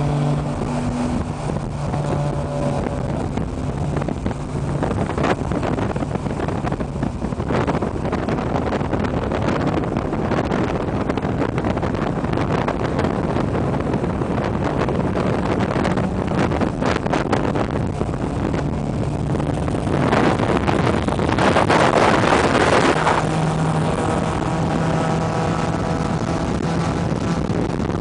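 A car driving at speed: a steady engine drone under constant road and tyre noise, with wind rushing over the microphone. The noise swells to a louder rush for a few seconds about twenty seconds in.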